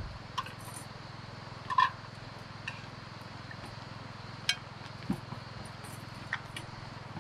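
Dishes and utensils clinking and clicking a handful of times, the loudest clink about two seconds in, over a steady low hum.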